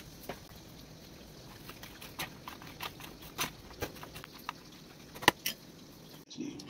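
A plastic spoon tossing sliced bitter gourd, tomato and onion in a plastic tray: irregular clicks and scrapes, the loudest knock about five seconds in.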